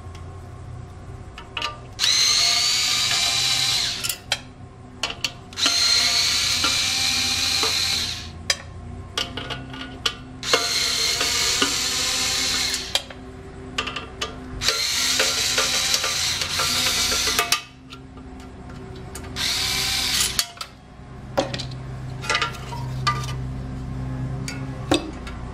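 Craftsman Evolv cordless electric screwdriver whining in five short runs as it backs out the screws holding a power supply's cooling fan. Small clicks and knocks of screws and metal being handled come between the runs.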